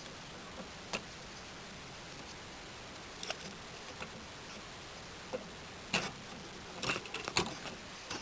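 Hard plastic Bionicle pieces clicking and snapping together as parts are fitted: scattered sharp clicks, a few early on and more in quick succession in the second half.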